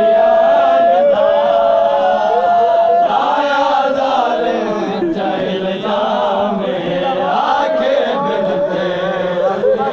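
A man chanting a noha, a Muharram lament in Saraiki, through a handheld microphone, with long held, wavering notes.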